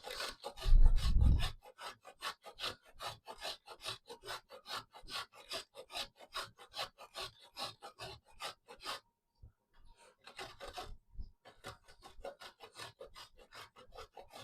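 A block of jaggery being grated by hand on a metal grater: steady back-and-forth rasping strokes, about four a second, with a brief pause a little past nine seconds. A low thud about a second in is the loudest sound.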